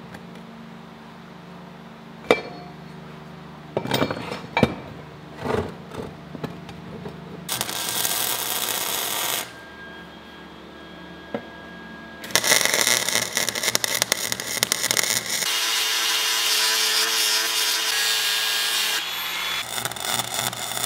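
Square steel tubing knocking and clanking on a steel workbench as the pieces are laid out. Then a short burst of arc welding about seven seconds in, and from about twelve seconds a loud, near-continuous stretch of welding and angle grinding on the steel bracket.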